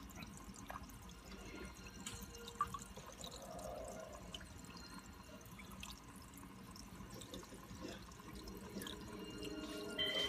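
Faint trickling and dripping of water in a home aquarium, with scattered small clicks and one sharp tap about two and a half seconds in.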